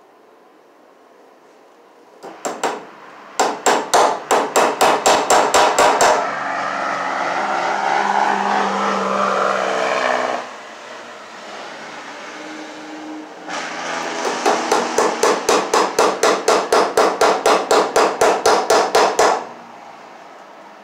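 Hammer driving cable staples into a wooden pole-barn post: two runs of rapid, even strikes, about five a second, the first starting a few seconds in and the second after a pause. Between the runs, a steady rushing noise lasts about four seconds.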